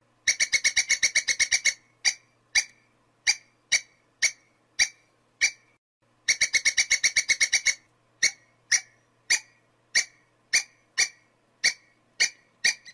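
Squirrel chirping calls: a fast run of about a dozen sharp chirps, then single chirps about half a second apart. The whole sequence is heard twice.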